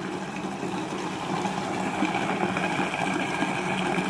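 Monsieur Cuisine Connect food processor running steadily at speed 4, its blade mixing a runny apple cake batter in the bowl: a steady motor hum with a faint high whine.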